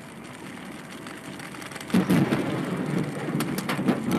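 Steady rain and road noise from a car driving in a downpour. About halfway through, a sudden loud thunderclap breaks in and keeps crackling, with several sharp cracks near the end. It is heard as video playback over an online call.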